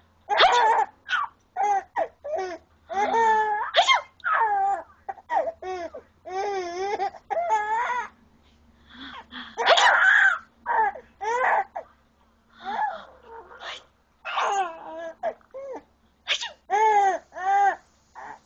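Baby laughing hard in a string of high-pitched, shrieking bursts with short breaths between, some wavering fast in pitch. The loudest, roughest burst comes about ten seconds in.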